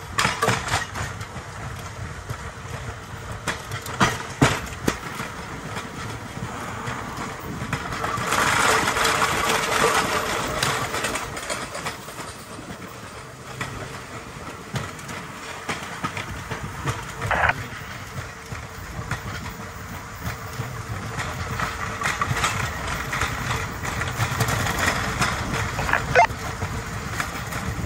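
Rail bike's steel wheels rolling along old, worn track, with irregular clicks and knocks as they cross rail joints. There is a short squeak about seventeen seconds in.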